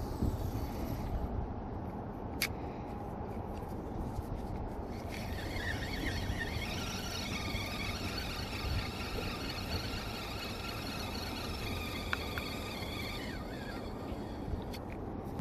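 Steady wind rumble on the microphone. From about five seconds in until near the end, a high whine made of several pitches together rises slightly and then holds.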